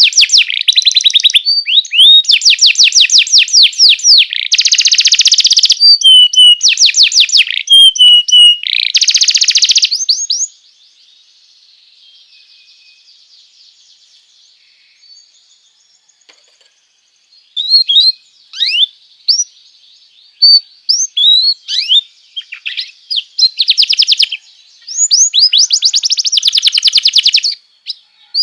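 Domestic canary singing loud, fast trills and buzzy rolls of rapidly repeated high notes. It falls silent for about seven seconds partway through, then resumes with quick sweeping notes and more rolls.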